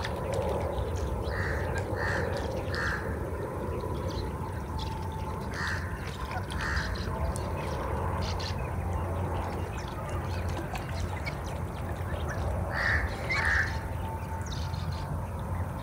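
Crows cawing outdoors: a run of three short caws, then two about the middle, then two more near the end, over a steady low rumble.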